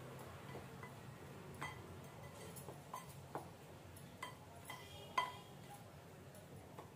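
A spatula stirring a dry gram-flour mixture in a glass bowl, with scattered faint taps and clinks of the spatula against the glass. The loudest knock comes a little after five seconds in.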